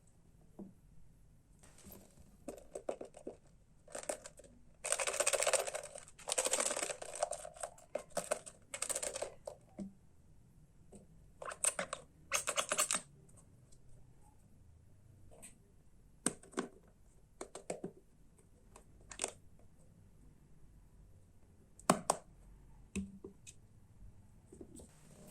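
Irregular clicks, taps and scrapes of a toy truck and its parts being handled, with longer rustling or scraping stretches about five to seven seconds in and again around twelve seconds.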